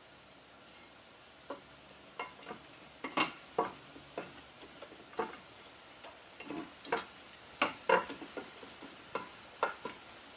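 Metal parts and hand tools clinking and knocking on a motorcycle engine's side case during reassembly: irregular sharp clicks and taps, a few louder knocks, starting about a second and a half in.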